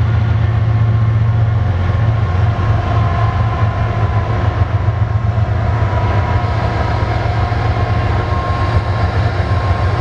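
BNSF freight train's diesel locomotives running with a steady low rumble and a faint steady whine.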